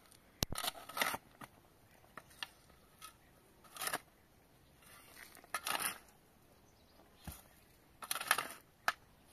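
A series of short scraping, crunching and tearing noises at irregular intervals, with a sharp click about half a second in and a louder cluster near the end.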